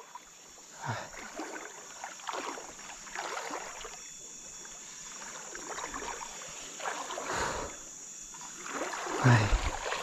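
Water splashing and swishing in irregular short bursts a second or two apart, with the loudest and deepest splash near the end.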